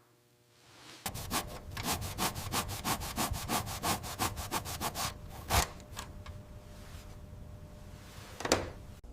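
Hand abrasion of a rusted typewriter part: quick back-and-forth rubbing strokes, about four or five a second, begin about a second in. After about five seconds they ease into a steadier, quieter rub, with one sharp swipe near the end.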